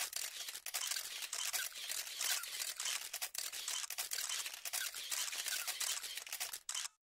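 Dense crackling and rustling noise full of small clicks, cutting off abruptly near the end.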